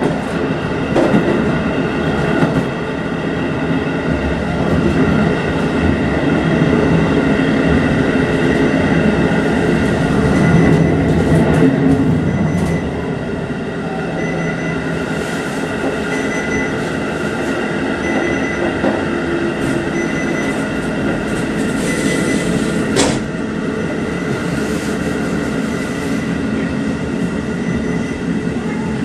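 JR Hokkaido 711 series electric multiple unit, a JNR-era AC train, running at speed, heard from on board: a steady rumble of wheels on rail with a constant whine from the running gear. One sharp clack comes about three-quarters of the way through.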